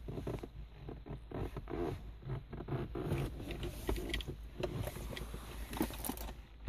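Irregular creaks, rustles and light knocks of someone shifting about and handling things inside a car cabin, with the engine not yet running.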